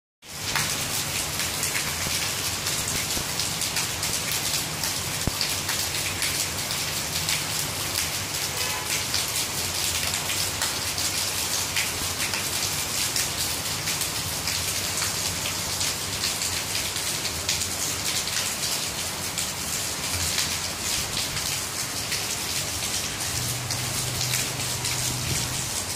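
Rain falling steadily on garden leaves and a wet paved yard: an even hiss made of countless small drop strikes.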